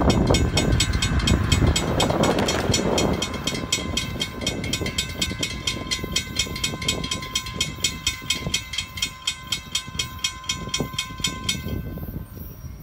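Railroad grade-crossing warning bell ringing in rapid, even strokes while the crossing gates lower, signalling an approaching train; it stops about a second before the end once the gates are down. A rush of noise is louder over the first few seconds.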